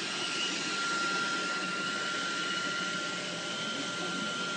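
Steady, even whirring hiss with a thin constant whine above it, like a running appliance motor or fan.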